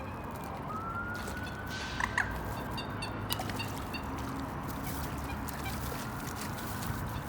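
A distant siren wailing slowly, its pitch falling, then rising and holding, over a steady low rumble. A brief, louder bird call comes about two seconds in, and small birds chirp faintly.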